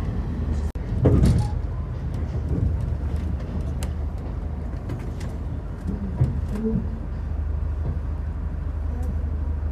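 Passenger train running, heard from inside the carriage: a steady low rumble that swells louder for a moment about a second in.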